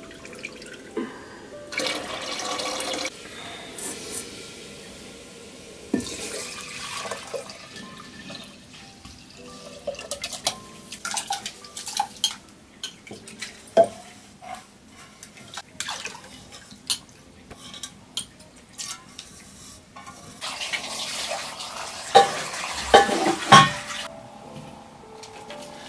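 Water splashing and sloshing as rice is washed by hand in an aluminium bowl under a thin stream of water, with scattered clinks and knocks of aluminium pots. Near the end comes a longer stretch of pouring water with a few loud metal clanks.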